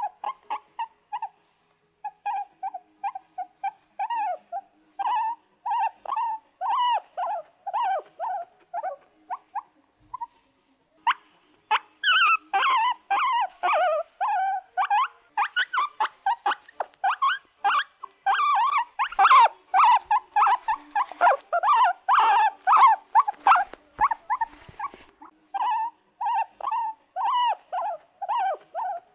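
Excited guinea pigs squeaking and wheeking in short, repeated pitched calls, about two a second. About ten seconds in the calls pause briefly, then come louder and denser, overlapping for a long stretch before easing back to a sparser run near the end.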